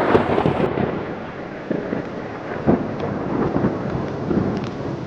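Thunderstorm: steady heavy rain with thunder, with a few sharper cracks standing out from the rain.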